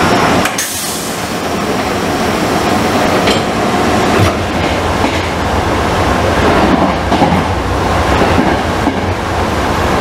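Sanyo Electric Railway 3000-series electric train running, heard from inside the passenger car: a steady rolling rumble with a few clicks of the wheels over rail joints.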